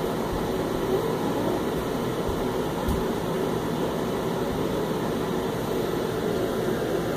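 Steady rushing noise of rain, heard from inside a car along with the hum of its running engine and fan.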